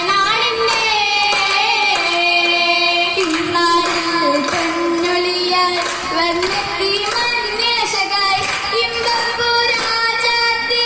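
Girls' voices singing a Mappila song for an oppana dance, long sung notes that bend in pitch, with hand claps in time with the song.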